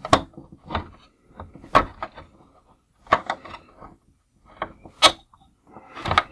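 Small screwdriver prying and scraping at the retaining tabs inside a hard plastic toy vehicle body, giving about six sharp, irregular clicks and knocks as the tabs are worked to spread them apart.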